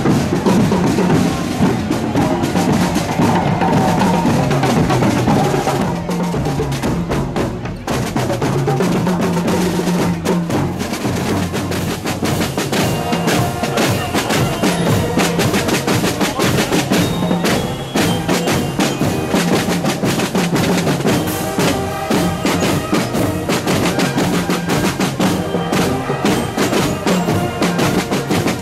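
Hunting-horn corps marching band playing on the march: snare and bass drums beat all through, with brass horns holding notes over them, heard more clearly in the second half.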